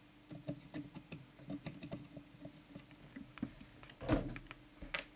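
Small, quick clicks and taps of a plastic trimming tool and fingers working in the open chassis of a CB radio while a coil is adjusted, over a steady low hum. A louder knock comes about four seconds in and another just before the end, as the tool is taken away from the board.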